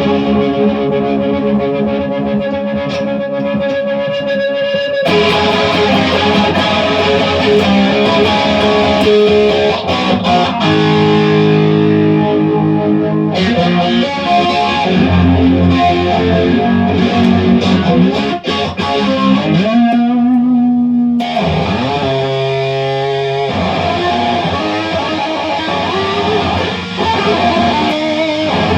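Electric guitar played through distortion and effects, held notes and chords in changing phrases, with a bend or slide in pitch about two-thirds of the way through.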